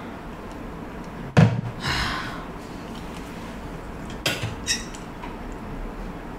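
A glass mug set down on a table with one sharp knock about a second and a half in. A few light clinks of cutlery follow about three seconds later.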